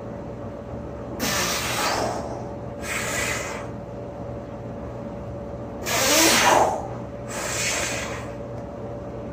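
Four heavy, rushing breaths, the loudest about six seconds in, from a man squatting with a person sitting on his shoulders, over a steady low electrical hum.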